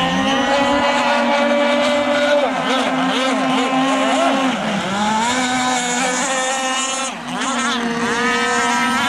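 Several radio-controlled racing speedboats running at speed, their small engines whining together at high pitch. The individual engine notes rise and fall as the boats pass and change speed, one dropping clearly about halfway through.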